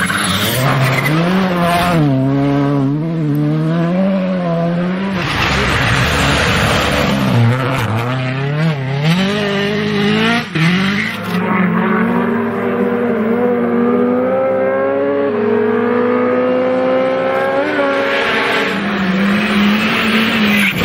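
Rally cars' turbocharged four-cylinder engines at full throttle on a snow stage, one car after another. The engine note swings up and down rapidly between about two and five seconds in, and from about twelve seconds in one engine climbs steadily through the revs.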